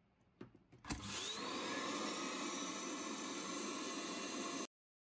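Benchtop vacuum-forming machine: two short knocks as the sheet frame is lowered, then the vacuum motor switches on and runs with a loud, steady rushing noise, drawing the softened sheet down over the mould. The sound cuts off suddenly near the end.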